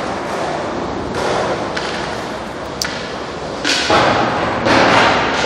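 Skateboard wheels rolling over concrete in a series of rushing swells, with a few sharp clacks of boards striking the concrete.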